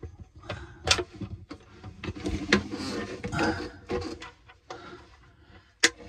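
Close handling noise while alarm cabling is worked on: scattered sharp clicks and knocks with rustling in between, the sharpest click near the end.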